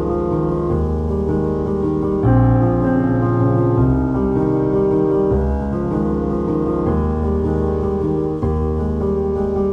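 Background music: piano with sustained chords that change every second or so.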